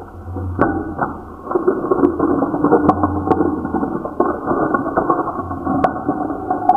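Irregular creaking and grinding with a few sharp clicks, louder from about one and a half seconds in.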